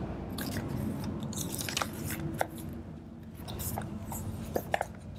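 Paper pages of a handmade journal rustling and crinkling as they are lifted and turned, with scattered small crackles.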